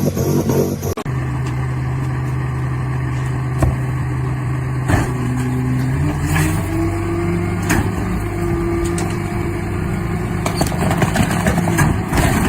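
An engine running steadily with a low drone, its pitch rising for a couple of seconds midway, with a few sharp knocks.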